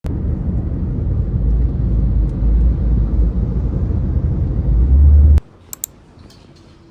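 A loud, low, fluctuating rumble that cuts off suddenly about five seconds in, followed by a couple of faint clicks over quiet background.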